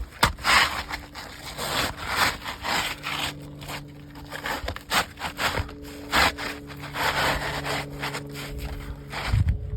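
Asphalt roof shingles scraping and rubbing against each other in a run of rough, uneven strokes with a few sharp knocks, as a replacement shingle is worked into place under the course above.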